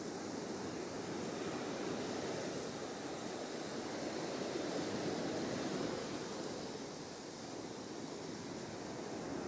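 Steady wash of ocean surf, swelling a little midway and easing again.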